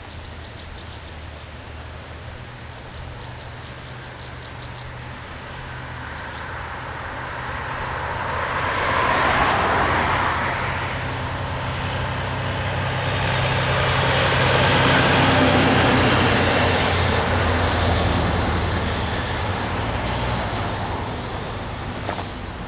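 Two road vehicles driving past one after the other on a highway, tyre and engine noise swelling and fading, the second pass-by longer and louder.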